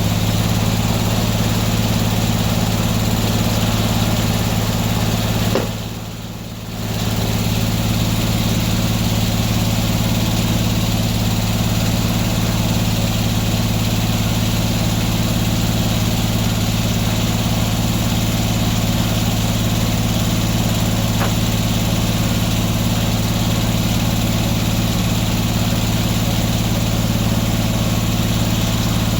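Engine running steadily at an even speed with a constant drone, likely the power unit of an antique sawmill. It dips briefly about six seconds in.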